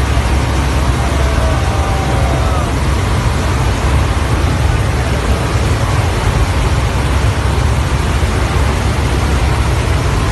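Loud, steady roar inside a military transport aircraft's cargo hold: deep engine drone with a rushing airflow hiss over it, unbroken throughout.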